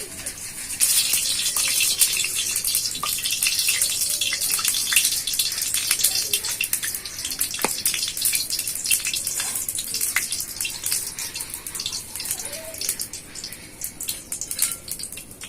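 Refined vegetable oil poured into a hot kadai (wok), sizzling with dense fine crackling that starts about a second in and thins out toward the end.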